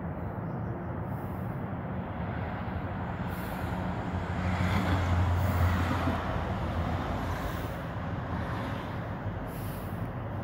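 Low, steady engine hum that grows louder about four seconds in and fades back over the next few seconds.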